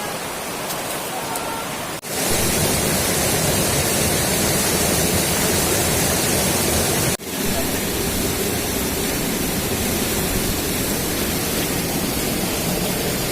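Waterfall's falling water: a steady, dense rushing noise. It jumps louder, with more low rumble, after an abrupt break about two seconds in, and breaks off again for an instant around seven seconds.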